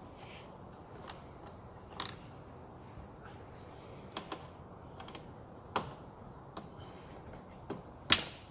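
Scattered sharp clicks and taps of a screwdriver working at the Phillips screws that hold a hood flap motor, about seven in all, with the loudest knock near the end.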